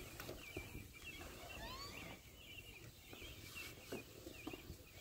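Faint bird chirping outdoors: a quick, squiggly chirp repeated over and over, with a rising whistle about two seconds in. A soft thump of movement comes about four seconds in.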